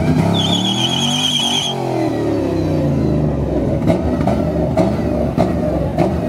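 Car doing a burnout: the engine revs hard as the rear tyres spin and smoke, with a high wavering tyre squeal early on. Several sharp cracks come in the second half.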